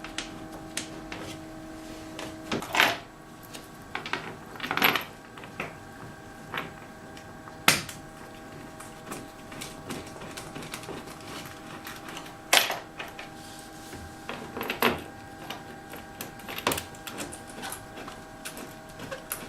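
Irregular clicks and knocks of hand tools and small metal parts being handled during car assembly work, about a dozen scattered sharp taps.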